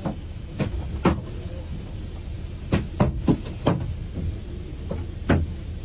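Scattered sharp knocks and clicks, about eight at irregular spacing, over a steady low rumble.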